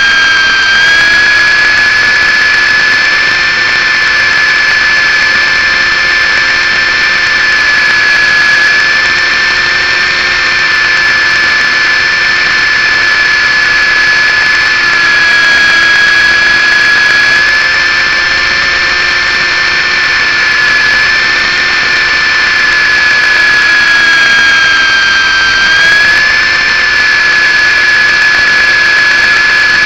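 MJX F645 RC helicopter's electric motor and rotor drive whining steadily in flight, heard close up through its own onboard camera. The high whine holds nearly level, dipping slightly in pitch about halfway through and again near the end.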